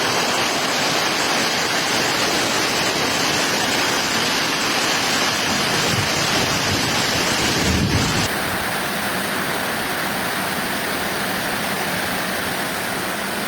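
Steady rushing-water noise of a heavy rainstorm, with a brief low bump about eight seconds in. Right after the bump it cuts to a slightly quieter, duller stretch of the same rain noise.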